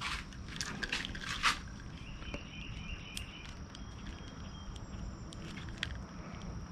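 Hands rustling and clicking the stator's wire leads and plastic bullet-connector sleeves on an outboard powerhead. Several scraping rustles come in the first second and a half, then scattered small ticks.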